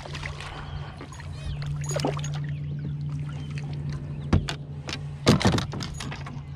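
Water splashing beside a kayak as a hooked bass is fought to the boat, under a steady low hum. Two sharp knocks stand out, one just past four seconds in and a louder, quick cluster about a second later.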